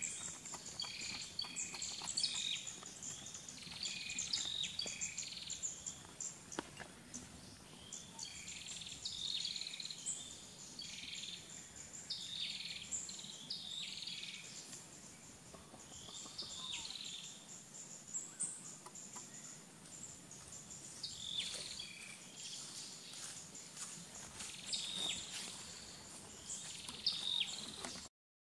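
Birds chirping in short repeated calls over a steady high-pitched insect drone, like crickets or cicadas.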